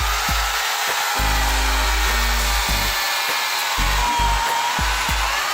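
Background music with a steady bass beat over the steady whir of an Oregon CS1500 electric chainsaw running, its pitch wavering slightly.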